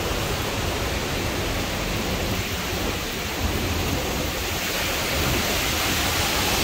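Hurricane-force wind with driving rain: a steady, dense rush of noise that grows a little louder near the end.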